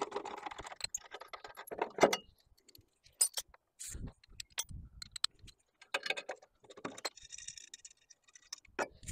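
Scattered metallic clinks, clicks and rattles of hand tools and small metal parts being handled, with a dull knock about four seconds in.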